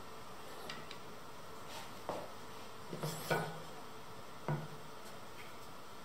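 Wooden chair parts handled on a wooden surface: a few light knocks and clicks, the loudest about three seconds in, as the board and the wooden dowels are picked up.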